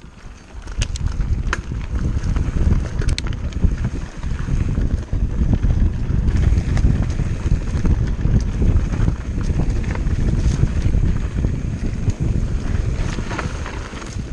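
Wind buffeting the microphone and tyre rumble from a hardtail mountain bike rolling fast over a dry, rocky dirt trail. The bike gives sharp clicks and rattles a few times early on and again near the end. The rumble builds about a second in as the bike gathers speed.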